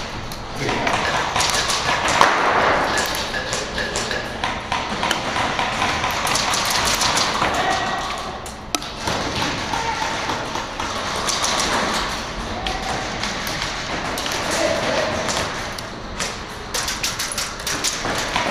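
Airsoft gunfire: scattered sharp pops and taps from several guns, echoing in a large warehouse hall, coming thicker near the end.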